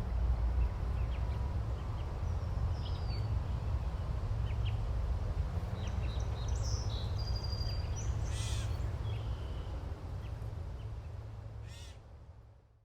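Outdoor ambience: a steady low wind rumble on the microphone with scattered short bird chirps, fading out near the end.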